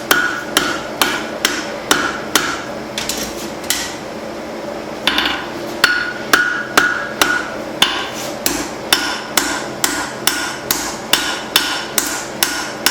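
Blacksmith's hand hammer striking hot leaf-spring steel on an anvil at about two blows a second, each blow with a short metallic ring. The blows pause for a second or so a few seconds in, then resume.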